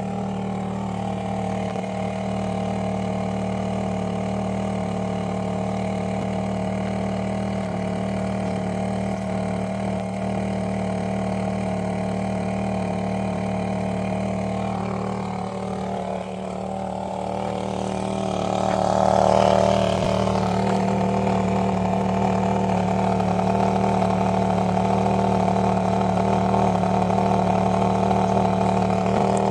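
Idling 4.2 L supercharged V8 of a 2006 Range Rover Sport during a vacuum leak test. It runs steadily, then about two-thirds of the way through a short burst of hissing noise comes with a rise in level, and the engine runs a little louder after it.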